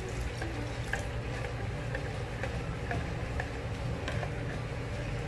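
Metal spoon stirring a thick bleach gel in a plastic measuring jug as a baking-soda solution is mixed in, with faint scattered clicks of the spoon against the plastic over a steady low hum.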